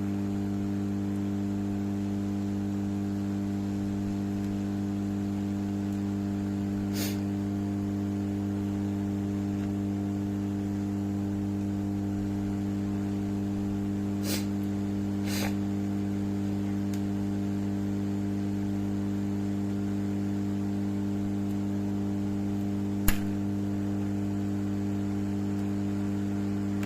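Blow lamp running steadily with a constant hum, heating a power IC to melt its solder for removal. A few faint clicks sound here and there.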